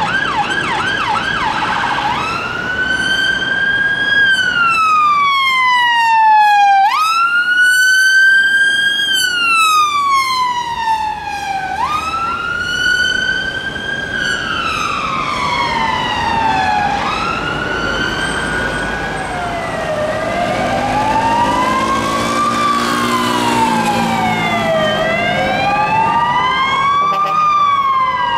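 Emergency vehicle sirens. A fast yelp for about two seconds switches to a slow rising-and-falling wail from UK emergency vehicles. From about two-thirds of the way in, a different siren takes over, the Belgian police two-tone-style sweep rising and falling evenly every couple of seconds.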